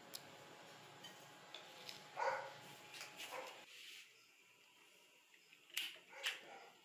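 A dog barks faintly twice in the distance. A gas stove burner is then lit with a lighter, giving two short hissing bursts as the gas catches.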